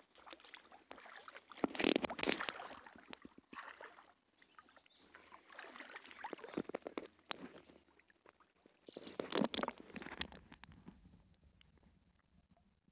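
Water sloshing and splashing in uneven surges, loudest about two seconds in and again near the ninth second, with scattered small clicks and knocks.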